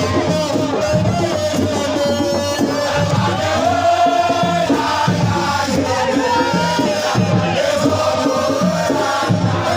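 Singing and chanting voices over a steady beat of low drums.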